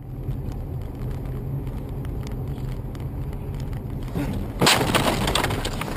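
Car cabin rumble from the engine and tyres on a snowy road, then about four and a half seconds in a sudden loud crash as the car strikes the steel blade of an oncoming snowplough, with snow slamming against the body and windscreen.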